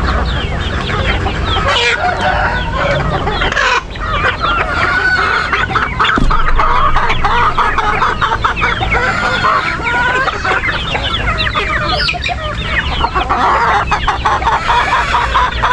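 A flock of chickens, roosters and hens, clucking and calling in many overlapping short calls, with a steady low rumble underneath.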